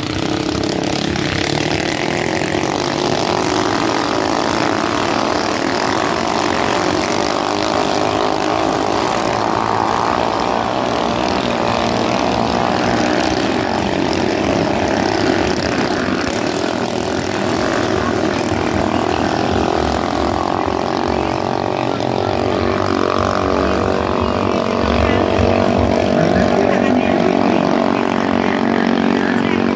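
Motorboat engine running steadily, loud and unbroken.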